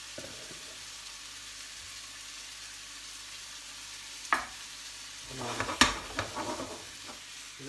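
Diced sweet potato and onion sizzling in hot oil in a non-stick frying pan. About four seconds in there is a sharp knock, then a run of knocks and scrapes as the pan is handled, the loudest near six seconds.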